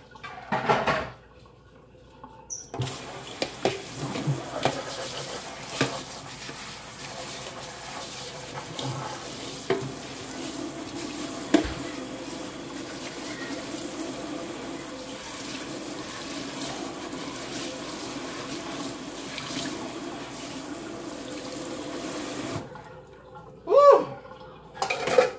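Kitchen tap running into a stainless steel sink while a mesh strainer is rinsed under it, with a few knocks in the first seconds. The water starts about three seconds in and cuts off suddenly about three seconds before the end.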